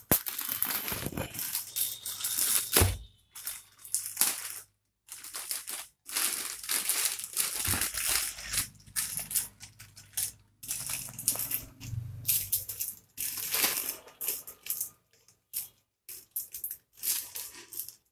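Plastic courier mailer and padded inner bag crinkling, rustling and tearing as they are cut open with a knife and handled, in irregular bursts with short breaks.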